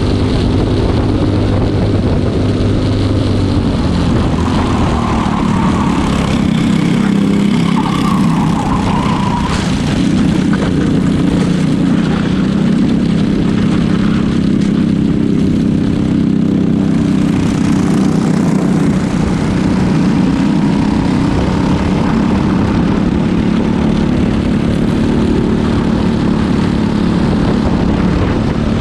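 Briggs & Stratton four-stroke kart engine running at racing speed, heard from on board the kart, its pitch rising and falling with the throttle through the corners. Rushing noise over the engine note.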